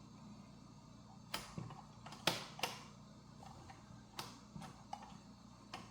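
Mechanical push buttons of a 1968–69 Lincoln car radio being worked to set a station preset: several sharp, irregularly spaced clicks and clacks.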